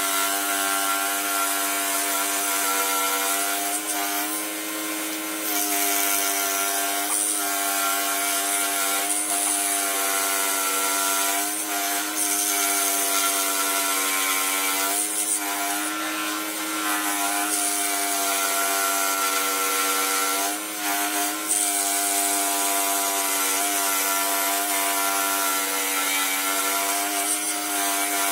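Pégas 21-inch precision scroll saw running and cutting a wooden blank, a steady buzzing hum from the reciprocating blade with the scratchy sound of the cut on top. It eases off briefly about three-quarters of the way through.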